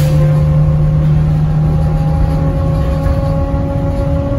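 Gillig trolleybus's Kiepe electric traction drive whining as the bus picks up speed: several steady tones creep slowly upward in pitch over the rumble of the road, heard from inside the cabin. A low hum drops out about halfway through.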